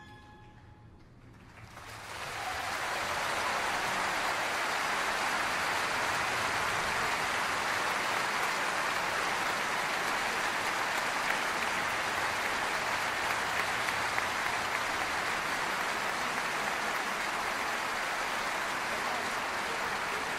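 Applause from a large audience, a dense steady clapping that swells in over the first two seconds and then holds at an even level.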